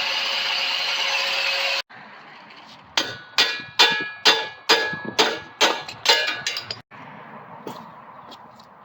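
A power cutter, most likely an angle grinder, running steadily as it cuts the steel frame tubing, cutting off suddenly about two seconds in. Then about ten ringing metal-on-metal hammer blows, around three a second, each ringing on briefly.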